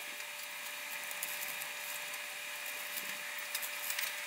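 Faint crackle and rustle of sticky cornflake mixture and wax paper being pressed into a ring by hand, over a steady hiss with a faint thin hum.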